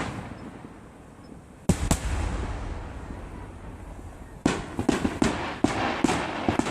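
Aerial fireworks bursting: two loud booms close together about two seconds in, then from about halfway a rapid run of sharp bangs and crackling over a continuous rumble.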